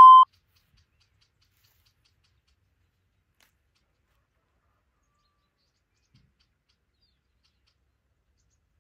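A steady electronic interval-timer beep cuts off just after the start, followed by near silence.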